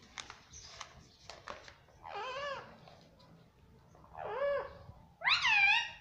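Indian ringneck parrot giving three short calls, each arching up and down in pitch, about two, four and five seconds in, the last the loudest. A few light clicks come before them.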